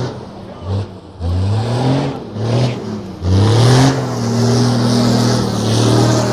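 KAMAZ rally truck's diesel engine revving in several short rising blips, then held at high revs from about three seconds in, with tyre hiss on asphalt as the truck drifts.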